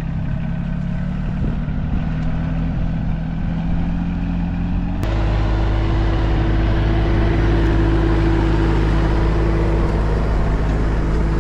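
Solis 26 compact tractor's diesel engine running steadily under load while it pulls a disc furrowing plough through tilled soil. The engine jumps louder and closer about halfway through.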